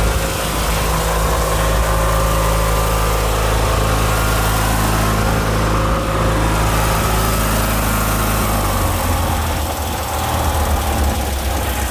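Murray 14 hp riding lawn tractor's engine running steadily; about two-thirds of the way through, its note falls to a lower, rougher running as the engine is throttled back.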